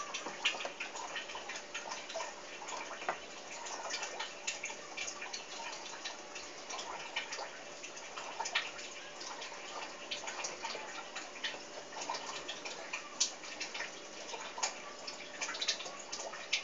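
Water trickling and dripping in a turtle tank, with many small irregular clicks and ticks over a steady hiss.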